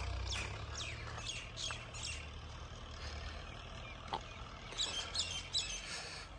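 Birds chirping in short, falling notes, in a run over the first two seconds and a quick cluster about five seconds in, over a low, steady rumble.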